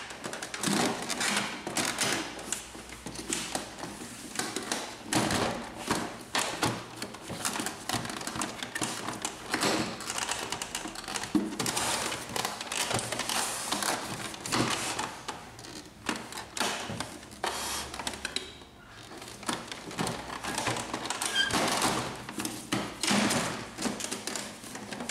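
Plastic clicks, knocks and rattles of an Epson XP-2100 printer's scanner unit being fitted onto the printer body and worked into place: an irregular series of sharp taps, with a short lull about two-thirds through.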